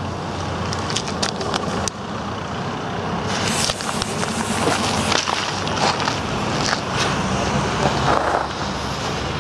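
Lit fuse of a Weco Super Ufo ground firework hissing and sputtering on the asphalt, with footsteps scuffing on the pavement as it is left to burn down. A steady rumble lies under it.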